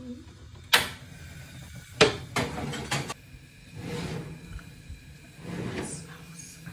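A Beko oven door being opened: a sharp click under a second in, then a loud metal clank about two seconds in followed by a few quick rattles. Softer scraping follows as the baking dish is slid out on the oven rack.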